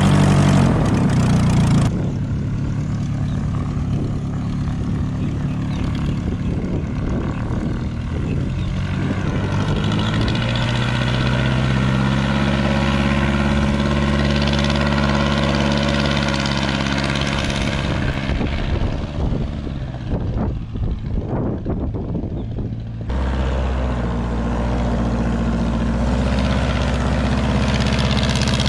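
Airboat running on the water, its Continental O-200 aircraft engine and propeller droning steadily. The engine's pitch swells and falls as the boat runs, and the sound changes suddenly about two seconds in and again about three quarters of the way through.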